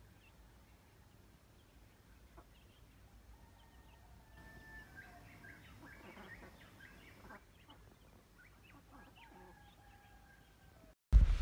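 A hen and her chicks feeding, with faint, scattered soft clucks and chirps that are busiest in the middle. At the very end a much louder sound cuts in suddenly.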